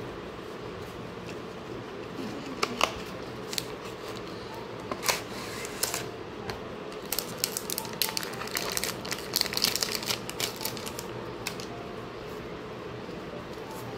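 Cardboard box and plastic packaging handled while a phone case is unboxed. A few separate sharp clicks from the box come first, then a busy spell of plastic crinkling and rustling in the middle as the case comes out of its clear plastic sleeve.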